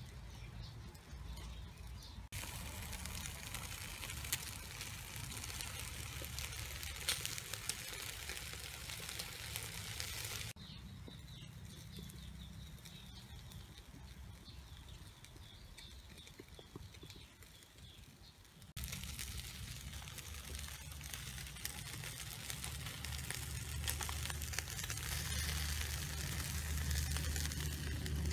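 Chicken wings sizzling and crackling on a wire grill over charcoal, with scattered clicks of metal tongs against the grate. In a quieter stretch in the middle, a bird chirps repeatedly.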